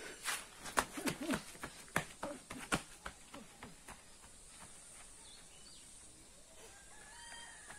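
Footsteps crunching on a dirt path in the first three seconds, then fading as the walker moves away. A steady high insect hum runs throughout, and faint bird calls come near the end.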